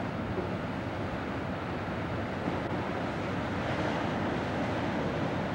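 Steady rushing noise of wind on the microphone mixed with the sea, heard from the open deck of a moving cruise ship.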